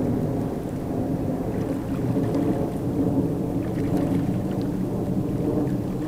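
Steady low outdoor rumble with no clear tone, and a few faint ticks above it.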